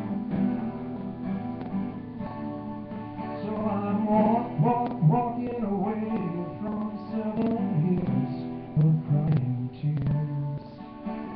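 Acoustic guitar being strummed through a song, with a man singing along over the middle part.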